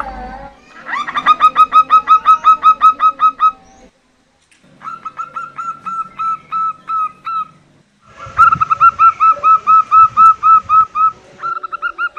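Female zebra dove (local perkutut) calling: quick runs of short, upward-flicking notes, about five a second, in three bouts with brief pauses, and a fourth bout starting near the end. This is the female call used as a lure to get males calling.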